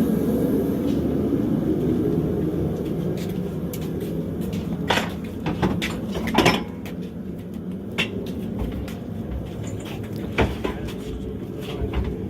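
A steady low rumble that slowly fades, with a few sharp knocks and clanks, the loudest about six seconds in, as metal pieces are handled and set down.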